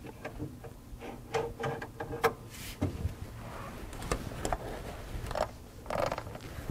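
Scattered metal clicks and knocks of a wrench being fitted to and worked on the generator pulley nut of a Porsche 356 engine, with a brief metallic ring about one and a half to two seconds in.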